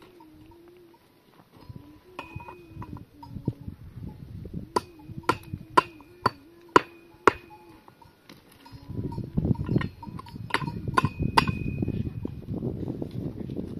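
Sharp metallic knocks, six in a row at about two a second, each ringing briefly, after a few scattered lighter knocks. From about nine seconds in, a rough, continuous scraping noise takes over.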